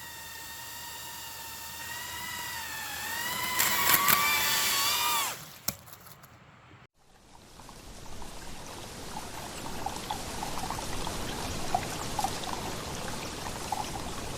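Small brushless drone motors whining at a high pitch, the pitch wavering and climbing before cutting off about five seconds in. After a brief gap, a rushing, trickling valley stream fades in and runs on.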